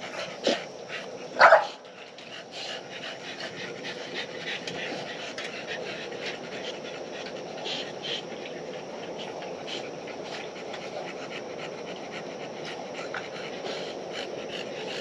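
Dog panting fast and steadily. Two short, louder sounds come about half a second and a second and a half in.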